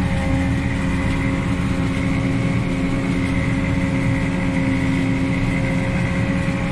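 Tractor engine running steadily under load, heard from inside the cab, with a sugarcane harvester working alongside: an even drone with a constant whine over it.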